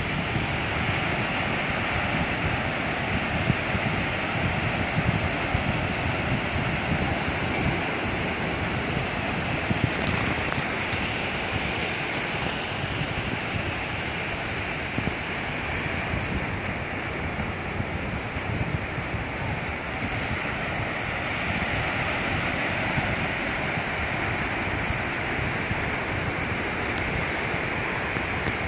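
Small surf breaking and washing up a sandy beach in a steady rush, with wind buffeting the microphone.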